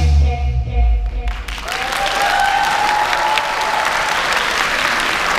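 The final bars of a bass-heavy pop dance track end about a second and a half in. Audience applause takes over, steady and dense, with one long cheer rising over it soon after.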